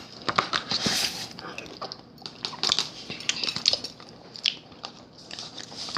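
Eating ramen: utensils clicking against the bowl at irregular moments, with chewing and mouth noises between.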